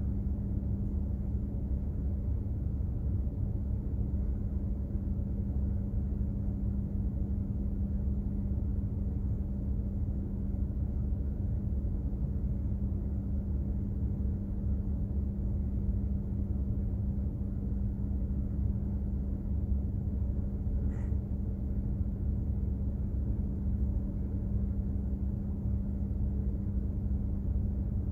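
Steady low rumble of a container ship under way, with a constant hum from its machinery running without change.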